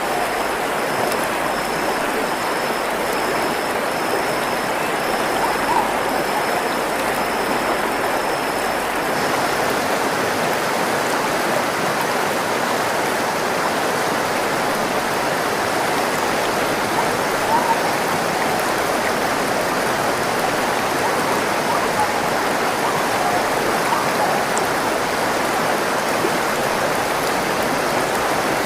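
Steady rush of a running stream. For the first nine seconds or so, a high-pitched chirp pulses over it about twice a second, then stops.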